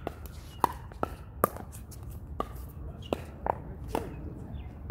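Pickleball paddles striking a hard plastic ball: a series of sharp, hollow pops, about eight of them, unevenly spaced.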